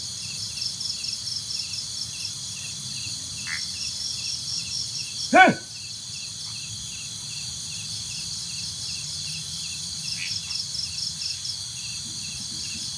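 Night insects, crickets, keep up a steady chorus of evenly repeated chirps. About five seconds in, one brief loud pitched call cuts through.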